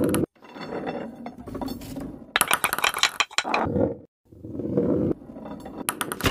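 Small balls rolling along wooden tracks and clattering through a marble-run contraption: a low rolling rumble broken by quick runs of clicks and clinks, the busiest about two and a half to three seconds in and again near the end.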